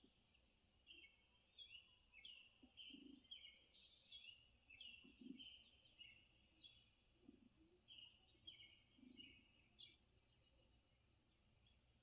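Faint songbird chirping from a nature video played through a television: a quick stream of short notes that thins out about ten seconds in.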